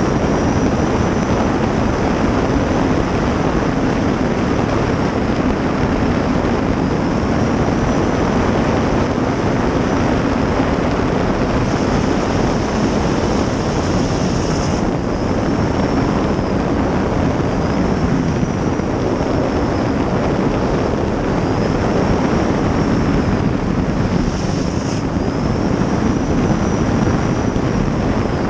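The 2000 hp gas turbine of a 23-foot Outlaw Eagle river-racing jet boat running hard at racing speed, heard from inside the cockpit: a steady, loud turbine rush with a high whine that gently rises and falls, mixed with water and wind noise.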